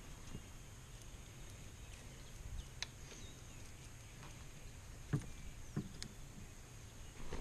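A few sharp knocks and clicks from a fishing rod and gear being handled against a plastic kayak as a small fish is lifted aboard, the loudest about five seconds in, over a faint steady hiss.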